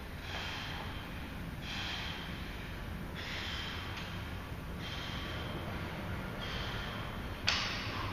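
Heavy, rhythmic breathing of an athlete between barbell reps, one hard breath about every one and a half seconds. Near the end comes a sudden, louder burst of noise as the barbell is pulled off the floor.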